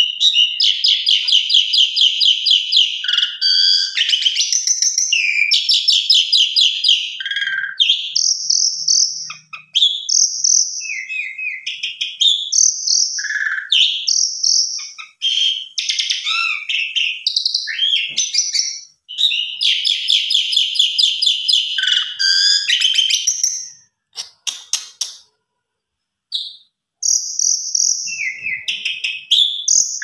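Asian pied starling (jalak suren) singing a long, varied song of rapid chattering trills and shrill whistles. The song stops for a moment about 25 seconds in, then starts again.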